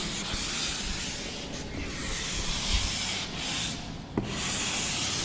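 Blackboard duster wiping chalk off a chalkboard: a rubbing hiss in several long strokes with short breaks between them.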